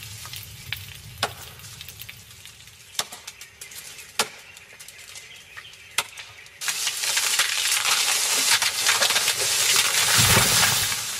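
Burning brush and trees crackling: scattered sharp pops at first, then about two-thirds of the way in a dense, much louder crackle.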